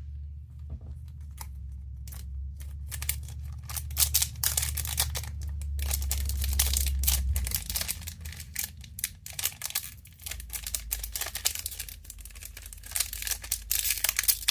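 Magic: The Gathering booster pack wrapper being torn open and crinkled by hand: a run of crackles and rips, busiest in the last couple of seconds. A low steady hum underneath drops about halfway through.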